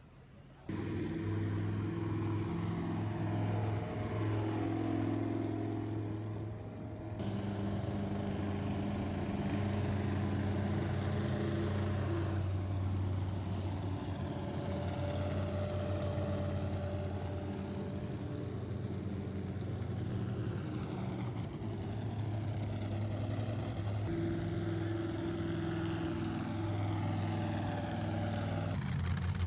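Car engines running, a deep steady hum that changes abruptly every several seconds.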